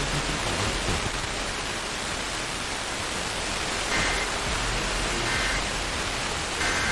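Steady hiss of radio static from weak off-air reception. Through it come three short bursts of the EAS digital data code, a two-tone warble, about four, five and six-and-a-half seconds in.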